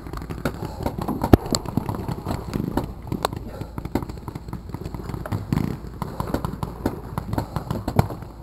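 Tall grass and weeds rustling against the player's gear, with scattered sharp clicks and pops. The loudest pop comes about a second in.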